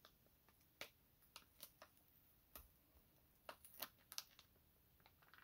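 Faint, scattered crinkles and clicks of a heat-sealed foil snuff pouch being handled and worked open by hand.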